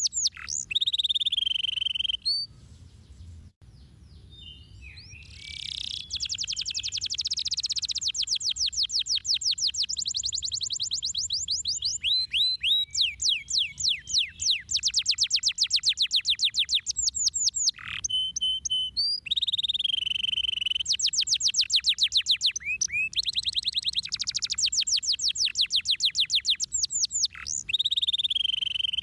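Domestic canary singing: long, rapid trills of evenly repeated high notes, one run after another, with a pause of a few seconds near the start.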